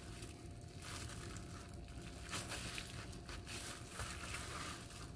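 Faint rustling of disposable plastic gloves and a bamboo rolling mat as hands roll and press a kimbap roll, with a few soft brief scrapes.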